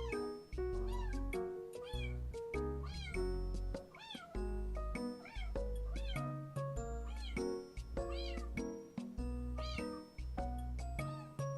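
Kitten meowing over and over, short rising-and-falling cries about one a second, over background music.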